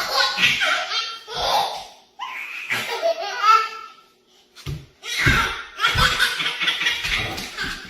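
People laughing hard in repeated bursts, with a short lull a little past halfway before the laughter starts again.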